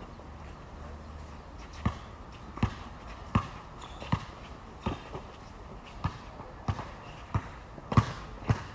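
A basketball being dribbled on a hard court. The steady bounces start about two seconds in and come about three every two seconds.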